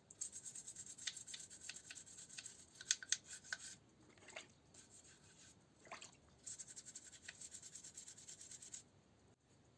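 Quick back-and-forth scrubbing strokes by hand on a small workpiece, in two stretches of about three and a half and two seconds, with a few sharp clicks about three seconds in.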